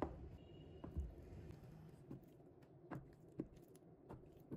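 Kitchen knife cutting soft mung bean jelly, tapping faintly on the cutting board: a few light knocks at uneven intervals.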